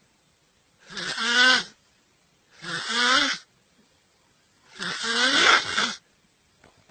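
Loud snoring: three rasping snores about two seconds apart, each with a falling pitch, the last one the longest.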